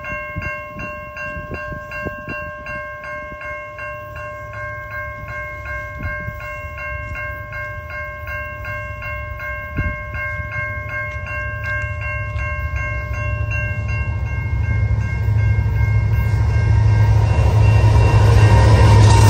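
A railroad crossing's warning bell ringing about twice a second. Over the last few seconds the rumble of an approaching CN freight train, led by an EMD SD70M-2 diesel locomotive, grows steadily louder as the bell fades under it.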